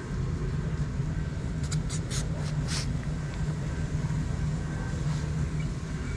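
A steady low rumble of background noise, with a few short scrapes and clicks about two seconds in from a metal spatula moving rice in a foam takeaway box.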